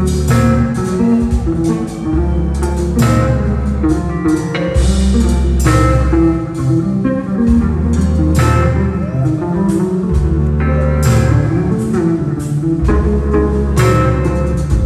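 Live jazz-funk band playing: an electric bass solo with held low bass notes over keyboards and drums, with cymbal crashes marking accents every couple of seconds.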